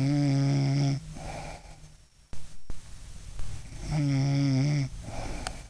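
A woman snoring: two loud snores about four seconds apart, each a steady rasp lasting about a second, followed by a softer breath out.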